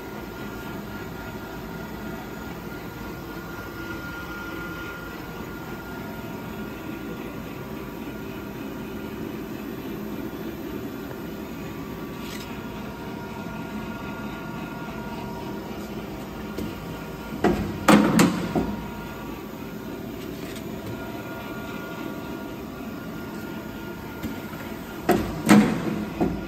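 Bizerba GLS metal detector's conveyor running with a steady mechanical hum. Twice, about two-thirds through and again near the end, comes a quick cluster of sharp knocks and clatter: the pneumatic pusher firing and knocking a tray off the belt into the reject bin.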